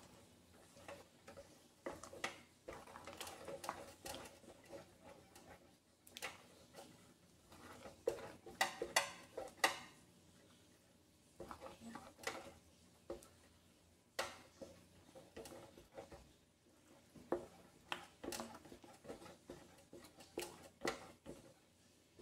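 Spatula stirring and scraping thick mashed squash in a metal pan, with irregular knocks and scrapes against the pan. A quicker run of louder knocks comes about eight to ten seconds in.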